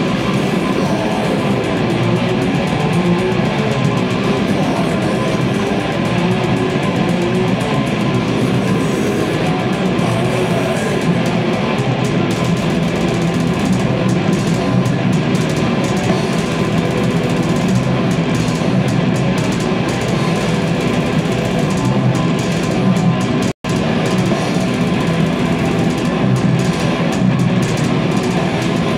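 Death metal band playing live: heavily distorted electric guitars through Marshall stacks and a Pearl drum kit in a dense, continuous wall of sound. The audio drops out for a split second late on.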